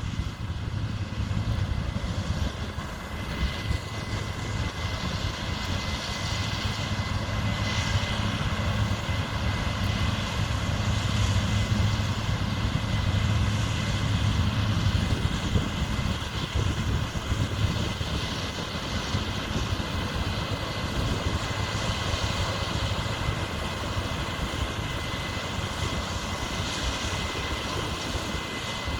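Heavy diesel farm machinery running steadily under working load: a constant low engine drone with a thin, steady high whine over it.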